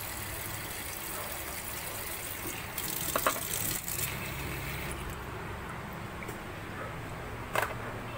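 Kitchen tap water running into a bowl of cut carrots and potatoes in a stainless steel sink as they are rinsed. The flow stops about five seconds in, and a short knock follows near the end.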